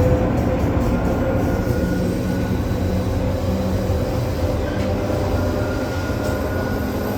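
ED4M electric multiple unit running along the track: a steady rumble of wheels and motors with faint steady tones over it.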